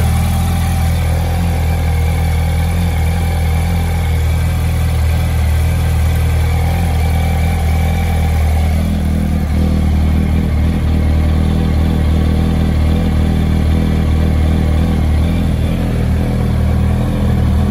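2008 Yamaha R1's inline-four engine idling steadily, its tone shifting slightly about halfway through.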